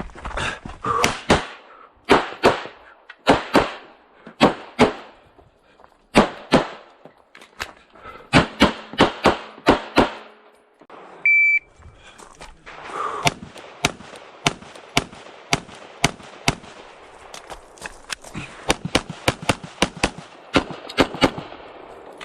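9mm pistol shots, fired in quick strings of close-spaced shots with short pauses between groups, each with a short echo. About halfway through, a single short electronic shot-timer beep sounds, and shooting resumes a second or so later.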